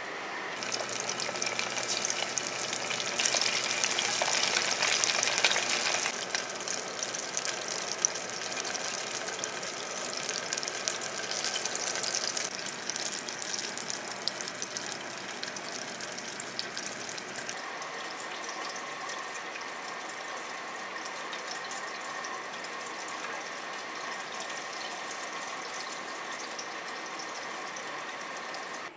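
Starch-coated fish pieces deep-frying in a shallow amount of oil in a small nonstick saucepan: a crackling sizzle that starts loud just after the start and softens after about six seconds, settling into a quieter steady sizzle in the second half.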